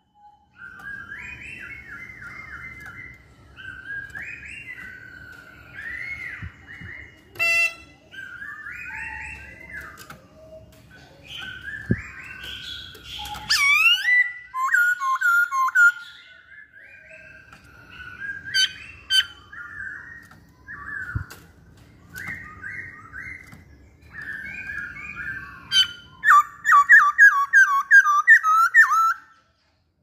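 Masked laughingthrush singing in full voice: a steady string of short, varied whistled phrases and trills, with a loud run of quick repeated notes near the end.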